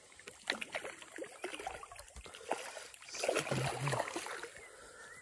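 A hooked hampala barb (sebarau) thrashing at the water's surface while being played on the line, with irregular splashes and the largest splash about three seconds in.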